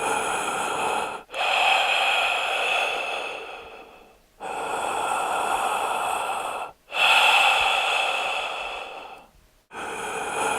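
Heavy human breathing into the microphone: about two and a half breath cycles, each a steady breath followed by a louder one that fades out, with abrupt cuts between them.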